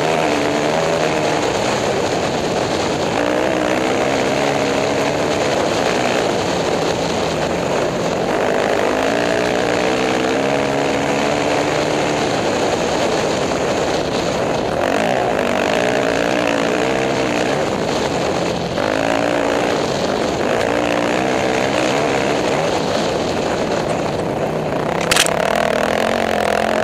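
Off-road racing motorcycle engine revving hard, its pitch climbing and dropping again and again as the rider works the throttle and gears over rough desert trail. The engine is overlaid with a constant rushing hiss, and a single sharp knock comes near the end.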